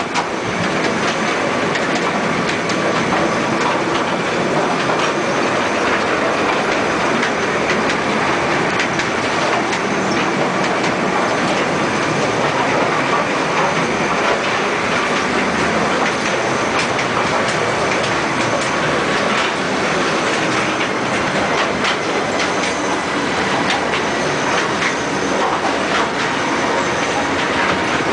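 Mine train cars running on rails through a rock tunnel: a steady loud rumble and rattle, with frequent clicks of the wheels over the track.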